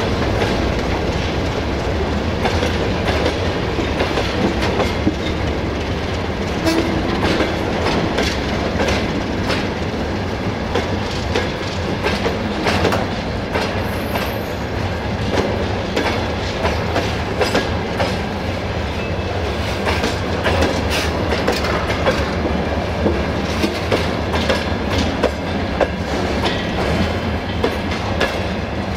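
Freight train tank wagons rolling past, their wheels clattering over the rail joints with many sharp clicks over a steady rumble.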